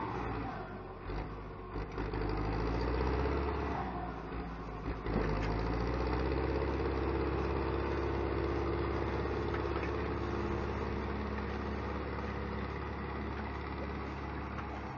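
Zetor 7340 Turbo tractor's diesel engine running steadily while towing a trailer. A brief knock sounds about five seconds in.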